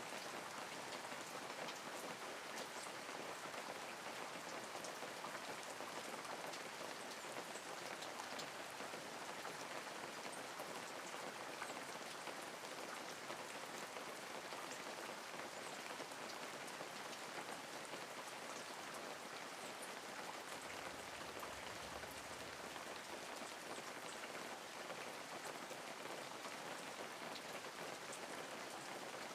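Steady rain falling on a window pane, an even patter with individual drops ticking here and there.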